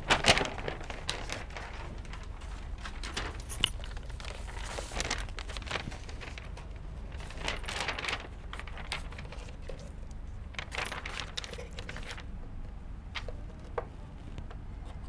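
Rustling and crackling of a folded paper chart as it is unfolded and pressed flat onto a whiteboard, with a few light taps.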